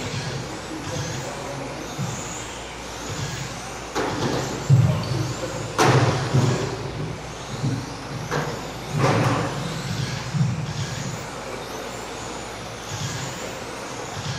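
1/10-scale electric touring cars with 17.5-turn brushless motors racing on a carpet track: motor whine rising and falling as the cars accelerate and pass, over a steady tyre hiss. There are several sharp knocks, the loudest about six seconds in.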